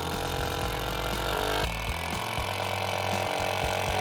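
Electric power drill running steadily under load in wood, its motor pitch shifting about two seconds in.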